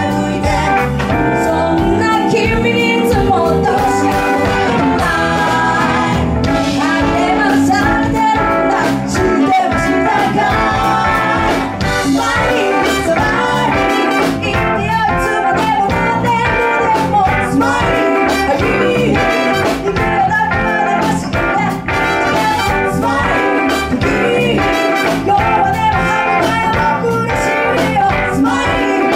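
A live band performing a song: several lead and backing singers singing together over keyboard and electric guitar.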